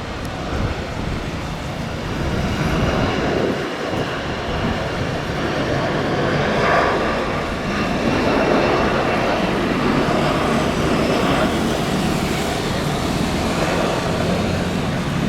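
Jet airliner's engines at takeoff power: a steady rush that grows louder over the first few seconds and then holds.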